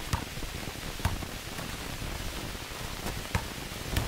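A basketball bouncing on stone paving: a few irregular thumps over a steady hiss.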